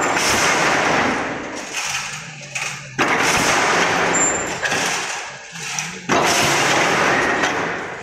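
Mechanical crimped wire mesh machine running, with a loud clattering impact about every three seconds (three strokes here), each fading out before the next. A low hum sounds between the strokes.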